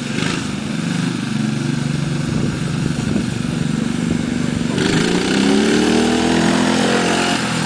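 Small petrol engine of a home-built motorised bathtub running as it drives along; about two-thirds of the way through the revs climb in a rising whine and it grows a little louder as the bath comes close.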